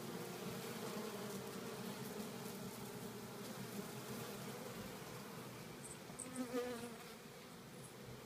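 Honeybees buzzing steadily at a hive entrance, the low hum of many bees together. About six and a half seconds in there is one short, louder pitched sound.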